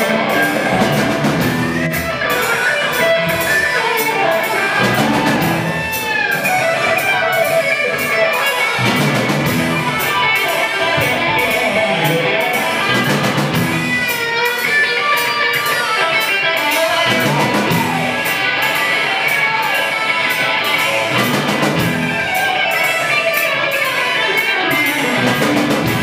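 Live rock band playing: electric guitar through a Marshall amplifier stack over bass guitar and a drum kit keeping a steady beat.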